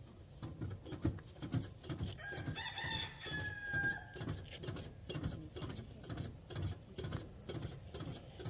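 A car engine being cranked over by its starter, in an uneven rhythm of about three to four pulses a second. A high, drawn-out tone sounds over the cranking from about two to four seconds in.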